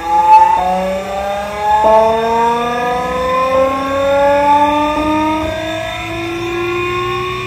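Homemade model VVVF inverter drive simulating a Siemens GTO train inverter, driving a small electric motor as it accelerates: a whine of several tones that climbs steadily, with a few abrupt jumps in pitch as the synchronous pulse count changes, from 13 pulses to 7 pulses per output cycle.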